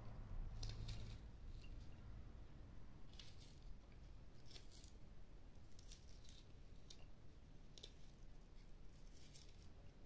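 Faint, irregular short clicks and rustles, about one or two a second, over a low rumble.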